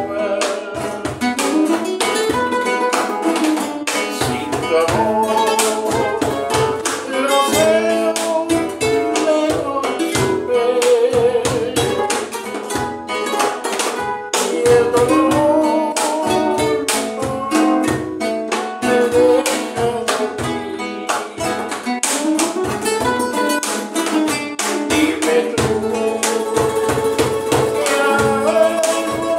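A bolero played live on two nylon-string classical guitars with a cajón keeping the beat, and a man singing over them.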